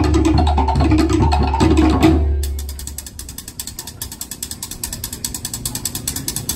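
Tahitian drumming ensemble playing a fast ʻōteʻa beat loudly, with deep drums underneath. About two seconds in the full drumming drops away, leaving a quieter, fast, even wooden clicking of sticks on slit drums.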